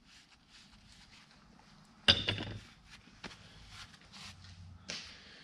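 A sharp knock about two seconds in as the A/C compressor's shaft and swash plate assembly is set down on the workbench, followed by a few lighter clicks and rustling as gloved hands handle the parts.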